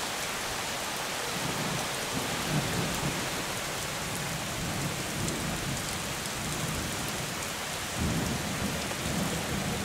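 Heavy rain falling steadily during a thunderstorm. Thunder rumbles low underneath, starting about two seconds in and swelling again near the end.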